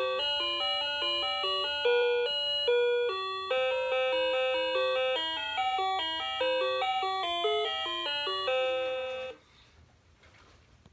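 Cuckoo clock's music box playing a melody of quick high notes, which stops about nine seconds in; the clock's faint ticking is left after it.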